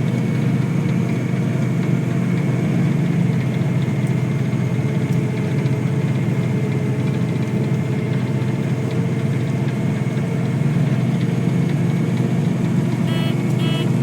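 Tractor engine running steadily while pulling a grain wagon during harvest, a constant low drone. Three short beeps sound near the end.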